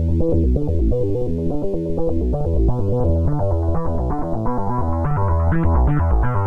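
Electronic synthesizer music: quick runs of notes over a strong bass line, with brighter, higher notes coming in about two-thirds of the way through.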